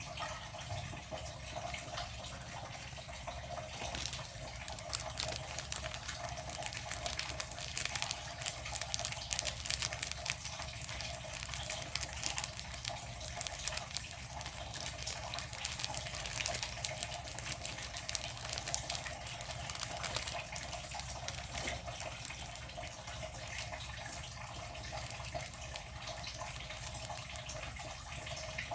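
Water running from a kitchen tap and splashing into a sink, a steady gush with fine spattering throughout.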